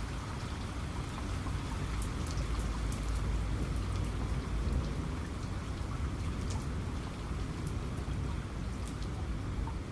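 Steady heavy rain with scattered sharp drop hits, over a low rumble of distant thunder that swells in the middle.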